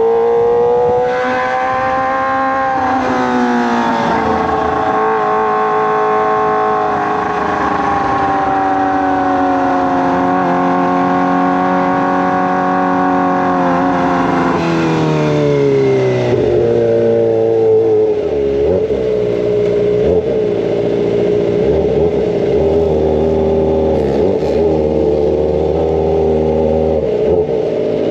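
Kawasaki ZX-25R's 249 cc inline-four engine through a Racefit Slash aftermarket exhaust, ridden: the pitch rises briefly, drops about three seconds in, holds steady for about ten seconds, then falls again and settles at a lower steady pitch for the rest.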